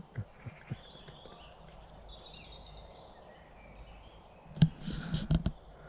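Faint woodland birdsong, thin high chirps over a quiet outdoor background, then a cluster of sharp clicks and knocks near the end.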